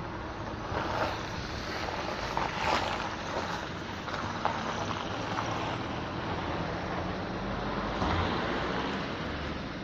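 A car driving with steady road and wind noise, and short squeaks from the suspension now and then, a fault the owner is trying to track down.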